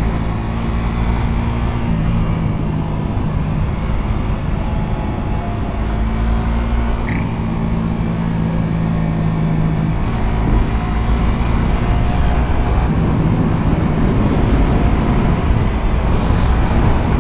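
Suzuki GSX-R150 single-cylinder engine running while the motorcycle is ridden. Its pitch holds steady and then shifts several times as the speed changes, and a rushing noise grows louder over the last few seconds.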